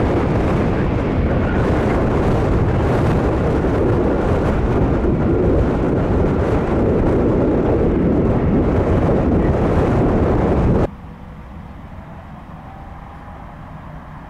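Boeing 747-400's four jet engines in a loud, steady rumble during a departure. About eleven seconds in it cuts off abruptly to a much quieter background, where a faint rising whine begins.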